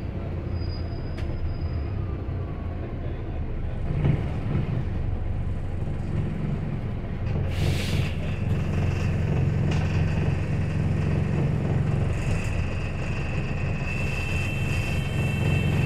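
Inside a moving single-deck city bus: its diesel engine and running gear give a steady low hum, a little louder from about four seconds in. About eight seconds in comes a brief hiss of released air, and from about nine seconds a thin high whine runs on, growing a second tone near the end.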